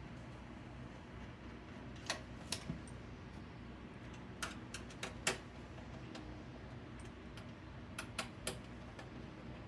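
Sharp metallic clicks and taps of a screwdriver driving and seating the last screw that holds a power supply in a computer case: about ten clicks in three small clusters, over a faint steady low hum.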